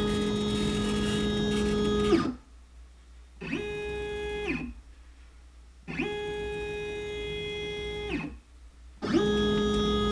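Stepper motors of a Shapeoko Pro XXL CNC whining as the gantry is jogged around: steady musical tones that glide up in pitch at the start of each move and down as it stops. The whine breaks off three times, for about a second each time, between moves.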